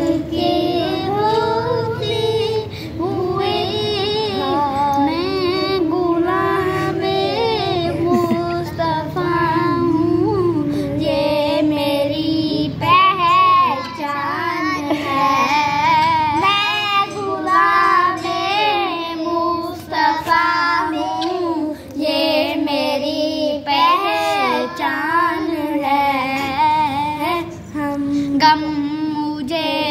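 Children singing a naat, an Urdu devotional song, in a wavering, ornamented melody with short breaths between phrases.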